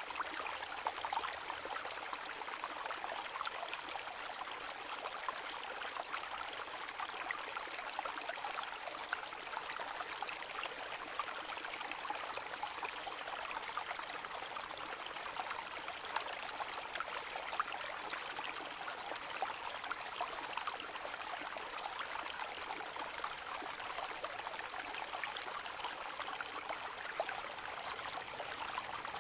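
A small brook flowing gently: a steady, even babble of running water with light trickling and splashing throughout.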